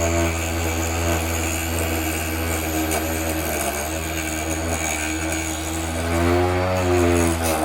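Vevor HS001 mini wood lathe running, its motor giving a steady low hum with a whining tone above it that rises and falls in pitch near the end.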